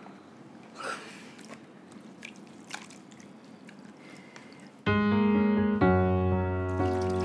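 Faint water drips and splashes as a wet cloth is dipped and wrung over a plastic basin. About five seconds in, background music with sustained keyboard notes starts and becomes the loudest sound.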